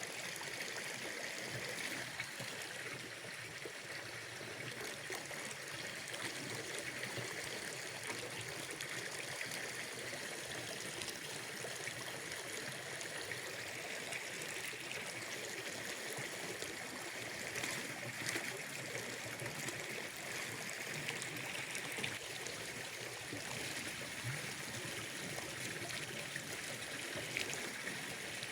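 Steady trickling, flowing water: an even, unbroken rush with a few faint small clicks.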